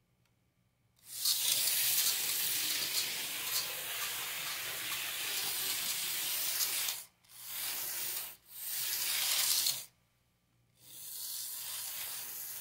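Tiny electric motor and gear drive of an N-scale switcher locomotive running along the track, a steady scratchy hiss that cuts out and restarts three times in the second half as it runs in fits and starts. This is the stiff running of a cold mechanism, which runs smooth once warmed up.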